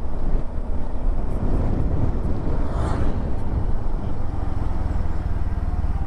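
Road vehicle on the move: a steady rumble of engine, tyre and wind noise, with a brief rush of higher hiss near the middle.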